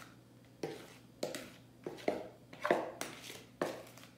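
Cake batter being emptied from an upturned plastic mixing bowl into a baking pan, with short soft knocks or plops about every half second.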